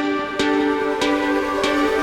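Background music: calm, slow electronic music with sustained notes and a new note struck about every 0.6 s.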